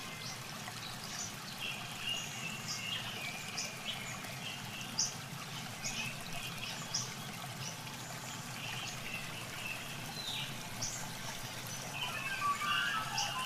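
Shallow muddy water sloshing and trickling as hands grope through it for fish, with short high chirps scattered throughout.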